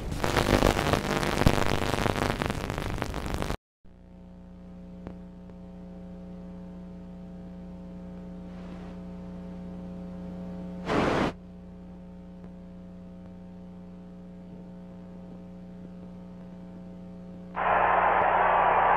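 Loud crackling noise that cuts out abruptly a few seconds in, giving way to a steady electrical hum with a short burst of noise about halfway. Near the end a loud band of hissing static comes in, like a broadcast signal breaking up.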